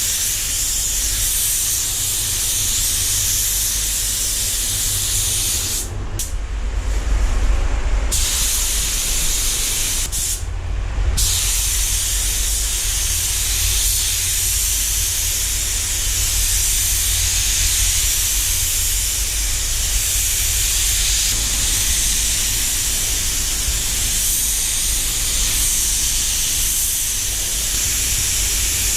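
Compressed-air spray gun laying down clear coat: a steady hiss of atomising air that stops twice, for about two seconds around six seconds in and for under a second around ten seconds in, as the trigger is released. A low rumble runs underneath.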